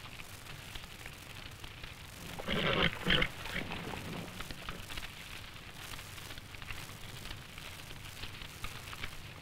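Burning reeds crackling steadily. Two loud short horse cries come about two and a half and three seconds in, from a terrified horse.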